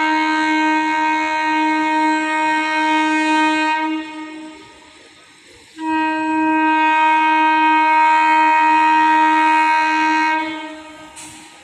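Indian Railways locomotive horn sounding two long blasts of one steady pitch, conch-like (shankh-like) in tone. The first blast fades out about four and a half seconds in; the second starts about a second later and cuts off near the end.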